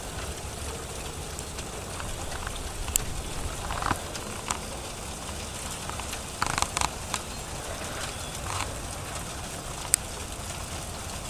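Hail falling: a steady patter with scattered sharp clicks as individual hailstones strike hard surfaces, a cluster of them about six and a half seconds in.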